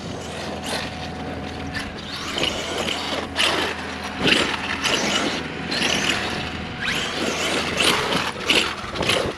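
Arrma Outkast 8S RC truck's brushless motor and drivetrain whirring in repeated surges of throttle as it drives over soft dirt, with clicking and clattering from the gears and chassis. The driver remarks that it sounds like a gear problem.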